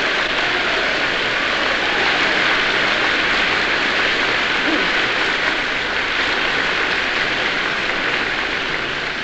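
Sustained applause from a large audience, a dense, steady clatter of many hands that begins to ease off at the very end.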